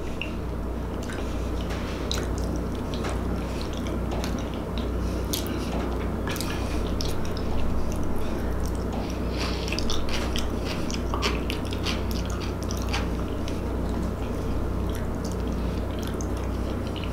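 Close-miked chewing and mouth sounds of a person eating soft food, baked beans and macaroni salad. Scattered sharp clicks and smacks run throughout, from the mouth and from wooden utensils touching the bowls, over a steady low hum.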